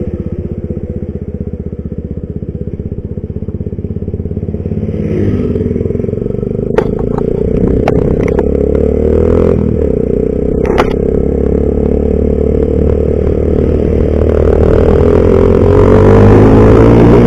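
Yamaha scooter's single-cylinder engine running at low revs, then pulling away about five seconds in and accelerating, growing louder toward the end. A few sharp clicks are heard along the way.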